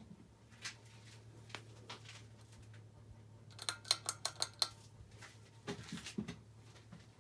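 Low steady hum, consistent with the motor of a Hunter Low Profile hugger ceiling fan, with a few light clicks, then a quick run of about seven sharp metallic clinks in the middle and a few duller knocks just after.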